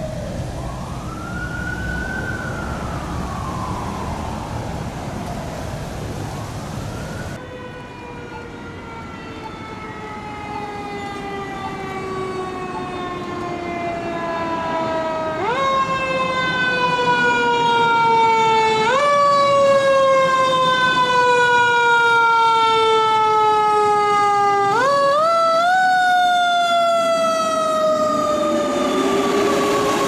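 Two fire engine sirens. First a siren wails up and down over traffic noise. Then, louder, a siren on a second fire engine falls slowly in pitch, winds sharply back up three times and coasts down again.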